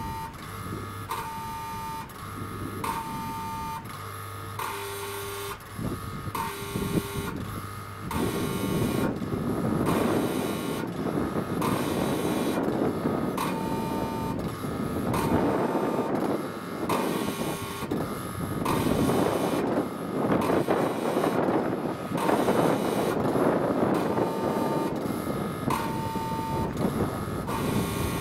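Level-crossing warning horn of an SSSR crossing sounding its electronic two-tone signal, repeating about every two seconds while the crossing is closed for an approaching train. From about a third of the way in, a loud gusting wind noise rises and falls over it.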